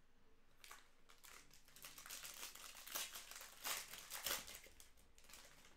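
Foil trading-card pack wrapper crinkling as it is torn open and handled: a string of sharp crackles lasting several seconds.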